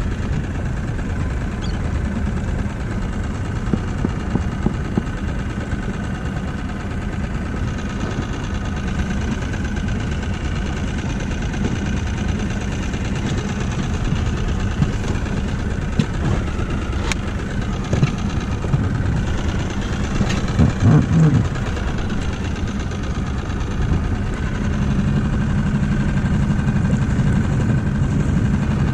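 Small outboard motor on an inflatable dinghy running steadily, with water noise underneath. A few sharp knocks come from the boat, with a louder cluster of them about two-thirds of the way through.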